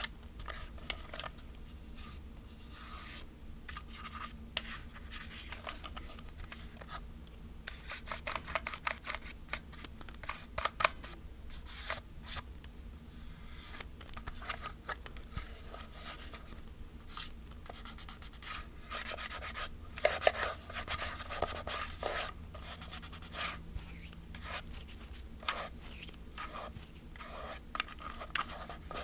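Dry brush sweeping over the hollow plastic body of a film camera in irregular short strokes, a soft rubbing and scratching, with a busier run of strokes about two-thirds of the way through.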